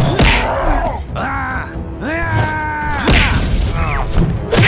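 Cartoon fight sound effects: hard punch impacts at the start, about three seconds in and near the end, with groaning cries that slide down in pitch, over background music.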